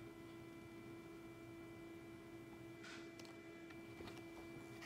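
Near silence with a steady faint hum. A faint, brief rustle comes about three seconds in, as the picture book is handled.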